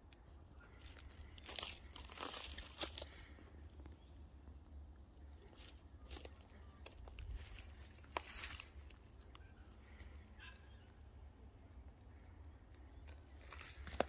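Dry leaf litter and twigs crunching and crackling underfoot in bushland, in three short spells of footsteps, over a low steady rumble of wind on the microphone.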